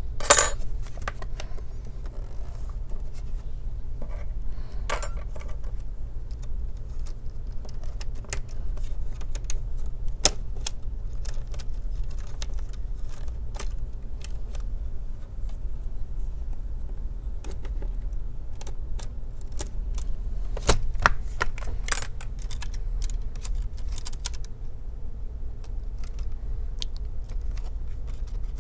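Scattered clicks, taps and light clatter of laptop plastic parts and keyboard deck being handled and pressed together during reassembly, over a steady low hum.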